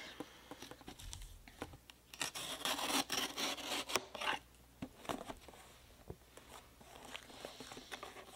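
Corrugated cardboard mailer box being handled and turned over: scratchy rubbing and scraping of cardboard with scattered taps and clicks, busiest in a louder spell from about two to four and a half seconds in.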